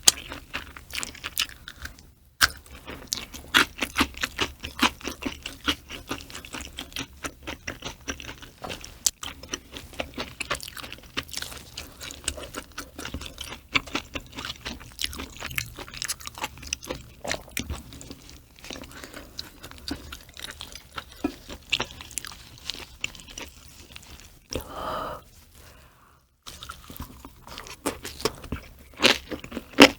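Close-miked chewing of raw mackerel sashimi and green onion kimchi: a steady run of wet, crisp crunches and smacking. Brief pauses come about two seconds in and near the end, and a short hum-like sound comes just before the second pause.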